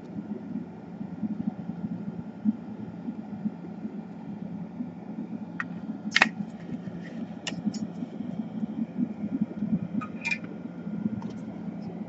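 Steady low background hum, with a few light clicks and taps as a laptop motherboard is handled and set down on the bench, the sharpest about halfway through.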